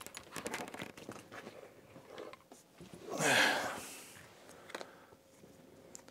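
Small cardboard packaging and paper-backed adhesive pads being handled on a table: light taps and rustling, with a louder rubbing scrape lasting about a second midway.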